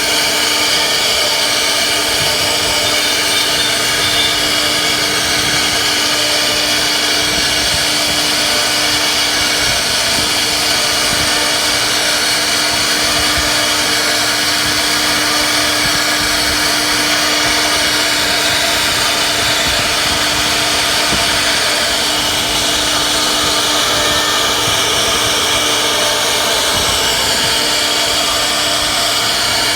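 CNC router spindle running steadily as it cuts wood, a constant whine over a hiss that does not change.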